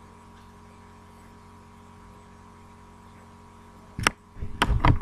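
Faint steady electrical hum, then about four seconds in a sharp click followed near the end by a quick cluster of knocks, typical of keys being struck on a computer keyboard and a mouse being clicked.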